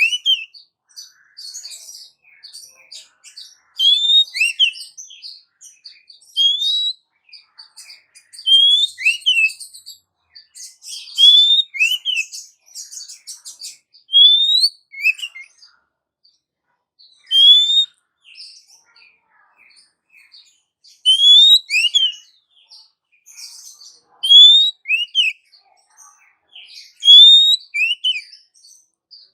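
Female oriental magpie-robin calling to a male: a two-note phrase, a rising whistle followed by a quick falling note, repeated about every three seconds. Scratchy chattering runs between the phrases in the first half.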